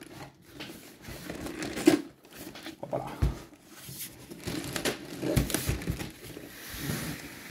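Large cardboard shipping box being handled and moved about, with several separate knocks and thumps and the rustle and scrape of cardboard.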